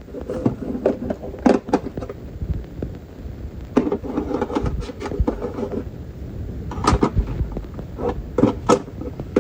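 Scattered knocks and clunks, some with a brief hollow ring, over a low rumble.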